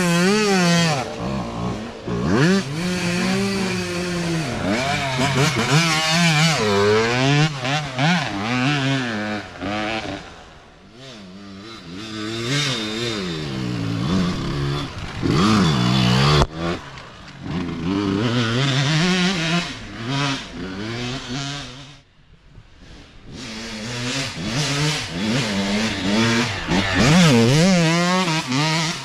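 Youth dirt bike engines revving and shifting as riders pass one after another, the pitch rising and falling with each throttle blip and gear change. The sound fades between bikes and dips briefly about two-thirds of the way through, then builds again as the next bike revs past.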